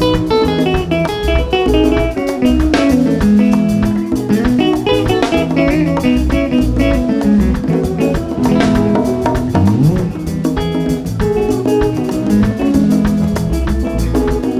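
Live Congolese rumba/soukous band playing an instrumental break: bright picked electric guitar lines over bass guitar and drums, with no singing.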